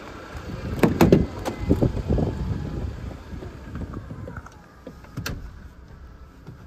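Sliding side door of a Toyota Vellfire minivan being unlatched and opened: sharp latch clicks about a second in, then the door running back on its track with knocks and a low rumble. Another sharp click comes a little after five seconds.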